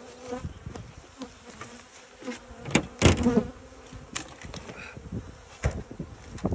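Honeybees buzzing around an open hive with a steady hum, broken by several sharp knocks and bumps as the wooden hive lid is gripped and lifted off, the loudest about three seconds in.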